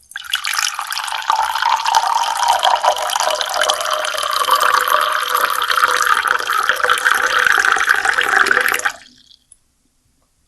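Water pouring in a steady stream for about nine seconds, its tone creeping slightly higher as it goes, then cutting off abruptly, with a few faint drips after.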